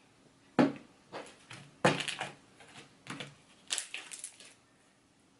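Freshly mixed slime being squeezed and pressed by hand, giving a string of sharp wet clicks and pops, the loudest about two seconds in.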